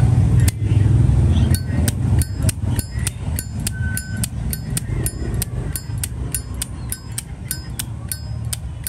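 Zippo Vintage lighter's lid being flipped open and snapped shut over and over, about two to three crisp metallic clicks a second with a short ring to each: a demonstration of the lighter's sound. A low rumble comes first and fades out after about a second and a half.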